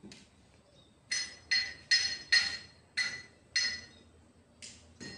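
About eight sharp taps on metal, each with a short ring, coming irregularly over about four seconds: a piston being knocked down into the cylinder bore of a Hino J08E diesel engine block during assembly.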